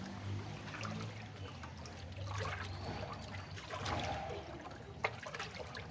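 Cow slurping watery feed mash from a large metal tub while a hand stirs through it: irregular wet sloshing and dribbling with small clicks, one sharper click near the end. A steady low hum runs underneath.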